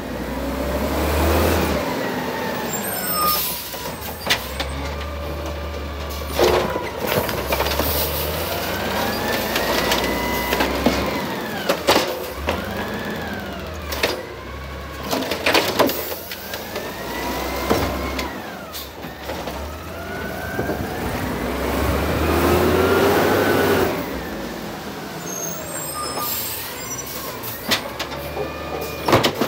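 Automated side-loader garbage truck working its lifting arm: the diesel engine revs up and down again and again with a rising and falling whine, over a steady low rumble. Several sharp bangs come as carts are lifted, shaken out and set down.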